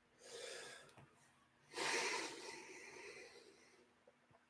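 A person breathing close to the microphone: a short, faint breath, then a longer one about two seconds in.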